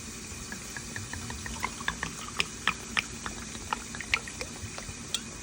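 White wine poured from a bottle, glugging in a quick run of short gurgles.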